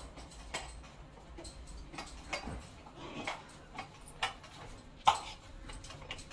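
Scattered light clicks and knocks of steel kitchenware on a kitchen counter as maize-flour dough is pressed and worked by hand in a steel plate, with one sharper knock about five seconds in.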